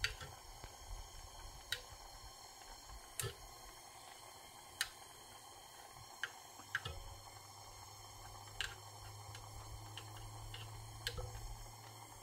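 Small soldering torch hissing faintly and steadily under a silver-overlaid bit cheek, with about ten scattered sharp ticks from the hot work while the solder is worked around the edges. A low steady hum joins about seven seconds in.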